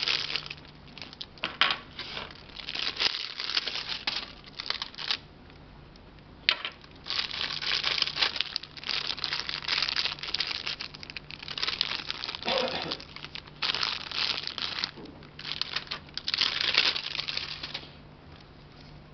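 Clear plastic packaging bags crinkling and rustling as they are handled and opened, in irregular bursts, with one sharp click about six and a half seconds in.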